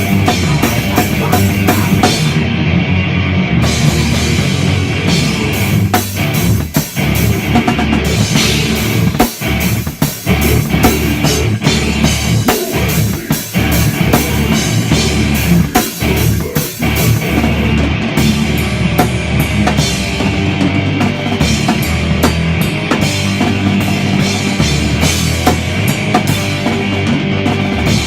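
Rock band playing a song at rehearsal, the drum kit loud and up front with bass drum, snare and cymbals driving a steady beat over low bass notes; the playing dips briefly a few times in the middle.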